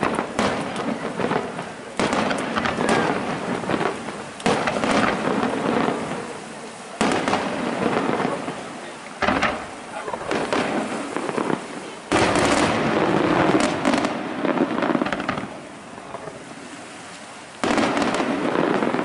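Aerial firework shells bursting in a display: about seven loud, sudden bangs a couple of seconds apart, each trailing off, with a quieter gap shortly before the last one.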